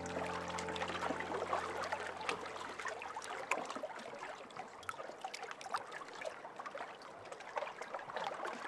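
Water trickling and lapping in a rapid, irregular patter of small splashes. The last held piano notes die away in the first two seconds.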